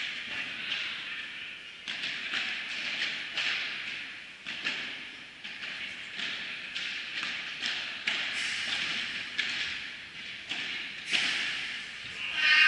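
Padel balls struck by rackets and bouncing on the court and glass walls in a large indoor hall: a string of sharp, irregularly spaced pops and thuds over a steady hall hiss.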